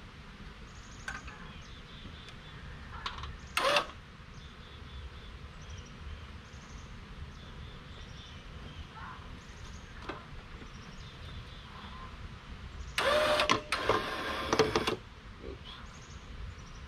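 Homemade hive lift built from an old extension ladder being worked: a short clank about 4 seconds in, then about two seconds of rapid rattling clicks about 13 seconds in, over a faint outdoor background with small chirps.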